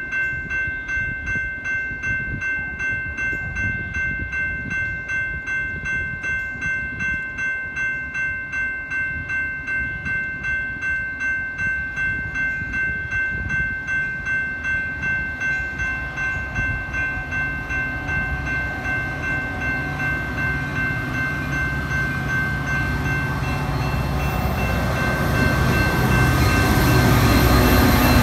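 Railroad crossing bell ringing steadily at about two dings a second. Over it, the diesel engine rumble of a Metra EMD F40PH locomotive grows louder in the last ten seconds or so as the train pulls alongside.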